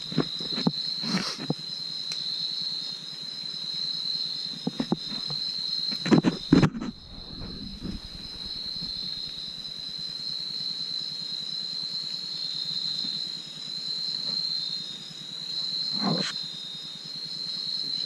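A steady, high-pitched trill from a chorus of night insects, likely crickets. Over it come a few short knocks and rustles of branches and handling, the loudest about six seconds in.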